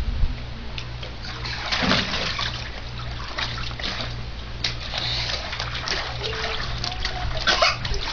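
Water splashing and sloshing in a small above-ground frame pool as children move about in it, in irregular bursts, the strongest about two seconds in and again near the end.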